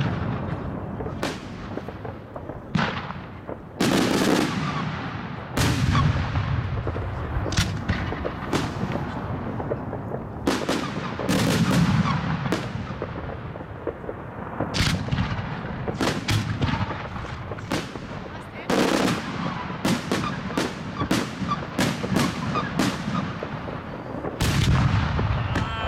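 Firework cakes (batteries) firing: a long run of sharp bangs from shells launching and bursting overhead, coming at irregular intervals, each dying away in a trailing echo.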